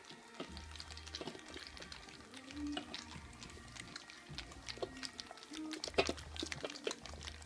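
Stabyhoun puppies lapping and smacking at soft food, with many quick wet clicks and slurps.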